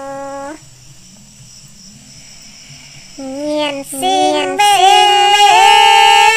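A woman singing a Red Dao folk song in a high, clear voice: a long held note ends about half a second in, then after a short pause a new phrase starts near three seconds and settles on a long, steady high note.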